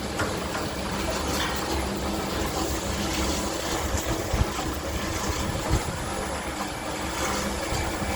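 Scraper and mixer drives of a 500 L cooking kettle running steadily at maximum speed: an even mechanical hum with a few light knocks.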